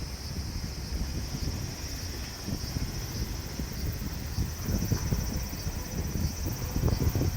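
Wind rumbling and gusting on the microphone, over a steady high drone of cicadas.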